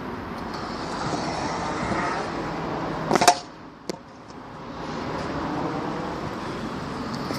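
Small hard wheels rolling over skate park concrete, the rolling building up, then a clatter of sharp knocks a little past three seconds as the rider lands or strikes an obstacle. After a brief lull and a single click, the rolling starts again.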